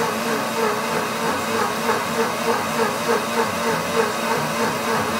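Pampered Chef Deluxe Cooking Blender running its self-clean wash cycle, the blade churning hot soapy water into foam. A steady hiss with a rhythmic pulse about three times a second.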